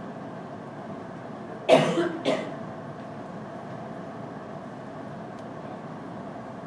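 A person coughing twice in quick succession about two seconds in, the first cough louder and longer than the second, over a steady room hum.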